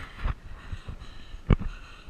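Scattered knocks and rustles, the loudest a sharp knock about one and a half seconds in.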